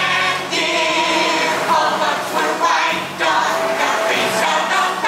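A chorus of voices singing the show's finale song over instrumental backing music.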